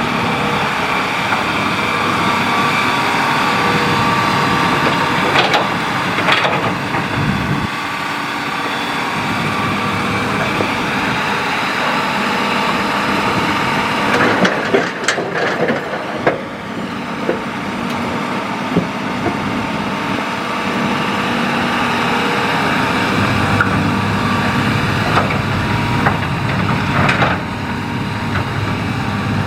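Hitachi hydraulic excavator running under load, its diesel engine and hydraulic whine steady, with the bucket knocking and scraping through sand, gravel and stones: a cluster of knocks about halfway through.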